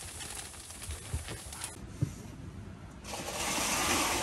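Light rustling and rubbing, then about three seconds in a louder scraping swish lasting about a second: a pleated window blind being slid along its track in a camper van.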